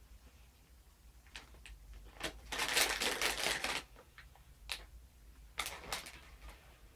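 Plastic bag of marshmallows crinkling and rustling as it is handled, loudest for about a second in the middle, among scattered light clicks and rustles.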